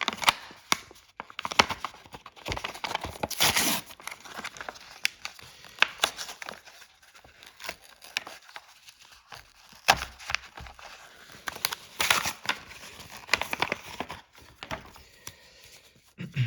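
Pokémon booster pack's foil wrapper crinkling and being torn open, a run of sharp crackles and rustles with louder tearing about three and a half seconds in and again near twelve seconds.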